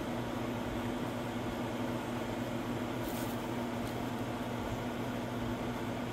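Steady machine hum with an even droning tone, and a brief faint rustle about three seconds in.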